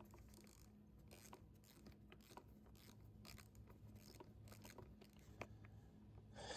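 Faint scattered clicks and light scraping of small metal parts being handled: 8 mm nuts being threaded by hand onto the chainsaw's air filter studs, over a low steady hum.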